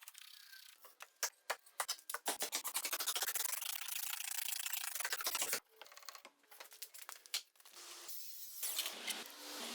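Hand work on wood: scattered clicks, then a dense run of rubbing and scraping strokes that stops suddenly about halfway, followed by lighter scrapes and taps.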